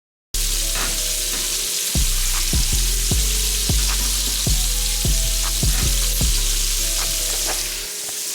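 Chicken frying in hot oil, a steady sizzle that starts suddenly just after the start, under background music with a regular deep bass beat.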